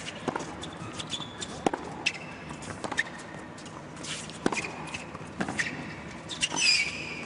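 Tennis rally on an indoor hard court: sharp pops of rackets striking the ball about every second or so, with ball bounces and sneakers squeaking on the court. The loudest squeak comes near the end.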